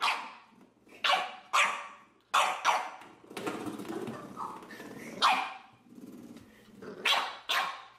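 Young white bulldog barking in short, sharp yaps, about nine in all, with a longer low growl in the middle.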